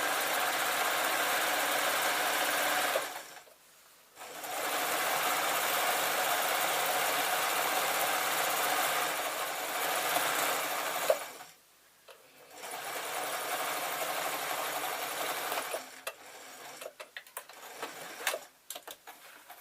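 Electric sewing machine stitching a long straight seam through fleece, running steadily in three runs with two short pauses, then stopping; a scatter of light clicks follows near the end.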